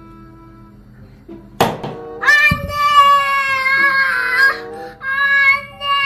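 A thump about a second and a half in, then a young girl wailing in two long, high-pitched put-on cries with a short break between them.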